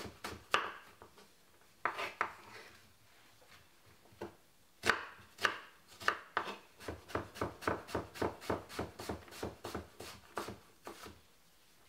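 Kitchen knife chopping on a cutting board: a few separate cuts, then a quick steady run of about three to four strokes a second in the second half.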